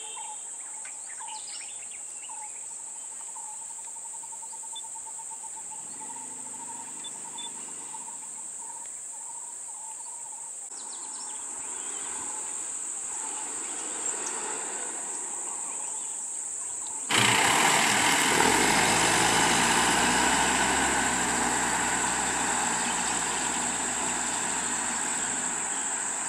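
Steady high-pitched insect drone, with a repeated pulsing call in the first part. About two-thirds of the way in, a nearby vehicle engine comes in much louder and runs steadily, the insects still droning.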